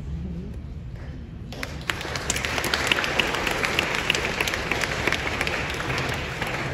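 A congregation applauding: many people clapping together, starting suddenly about a second and a half in and tailing off near the end.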